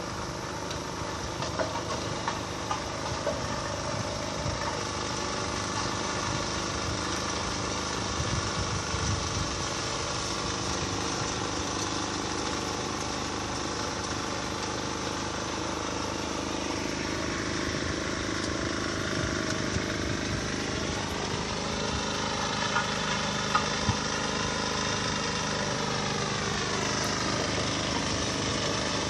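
An engine running steadily, its pitch sagging and then climbing again in the second half, with a few sharp knocks.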